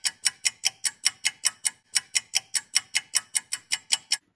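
Rapid, even clock-like ticking, about five sharp ticks a second, that stops abruptly near the end. It is most likely a ticking sound effect laid over an edited reassembly montage.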